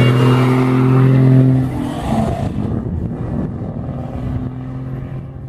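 Heavy truck's diesel engine running with the engine brake on: a steady low drone that breaks up about two seconds in and then fades away.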